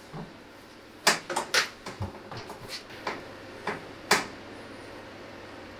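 Sneakers knocking and scuffing on a wooden workbench top as a man climbs onto it and steps onto a metal turntable platform: a string of sharp knocks over the first four seconds, the loudest about a second in and again about four seconds in.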